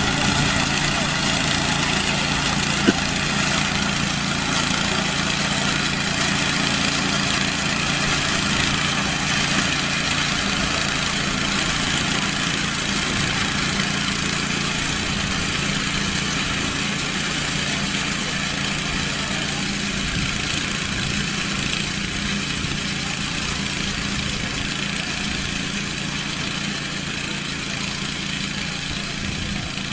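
Farm harvesting machine's engine running steadily at a constant speed, growing slightly quieter toward the end, with a few faint clicks.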